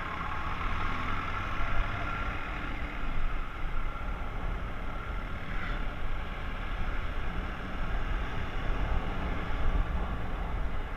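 Aprilia SR 125 scooter running at road speed, its single-cylinder engine under a heavy, gusting wind rumble on the microphone.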